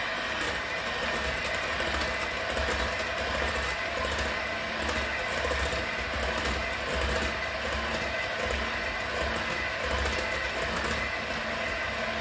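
Electric hand mixer running steadily, its beaters whisking cheesecake batter in a bowl.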